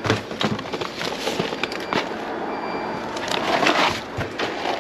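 Cardboard boxes of frozen vegetables and plastic food packaging rustling and knocking together as gloved hands rummage through them in a plastic wheelie bin, with many short sharp clicks, busiest a little past the middle.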